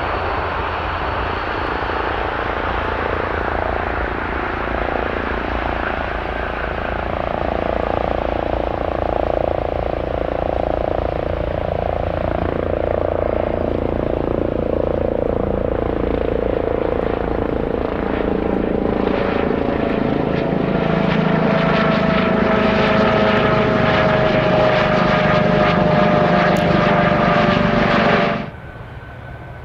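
Boeing 787 jet engines running at high power as the airliner moves along the runway, a steady jet noise that grows slowly louder, with a whining tone and crackle over the last ten seconds. It cuts off abruptly near the end.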